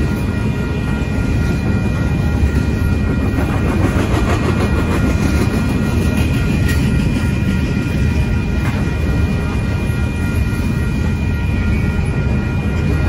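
Double-stacked container cars of a Union Pacific intermodal train rolling steadily past: a loud, even rumble of wheels on rail, with a few thin, steady high tones above it.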